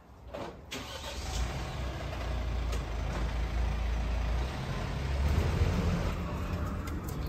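Delivery van's engine running with a low, steady rumble, over street noise.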